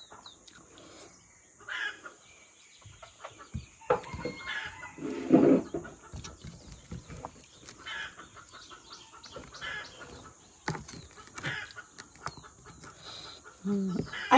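Chickens clucking on and off, with short separate calls, the loudest about five seconds in.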